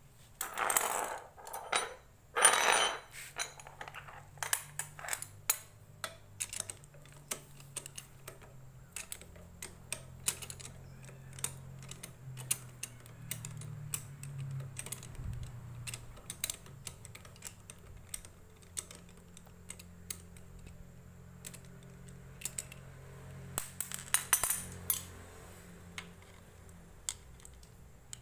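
Steel spanners and a socket extension clinking and clicking against a scooter's magneto flywheel as the tools are fitted and shifted, in irregular light taps with louder clatters near the start and again about 24 seconds in.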